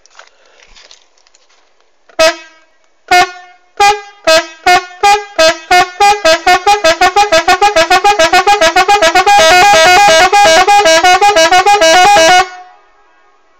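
Italian Marco electric car horn driven by a homemade rhythm controller: single blasts start about two seconds in and come faster and faster until they become a rapid pulsing honk that alternates between two notes, then cut off suddenly near the end.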